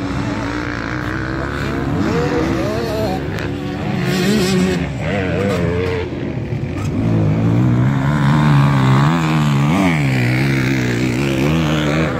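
Motocross dirt bike engines revving up and down as they are ridden round the track, the pitch rising and dropping over and over with throttle and gear changes.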